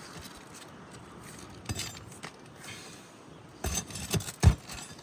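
Scattered light clinks and knocks of hand work on an asphalt-shingle roof. They come singly at first, then in a quick cluster near the end, where the loudest knock falls.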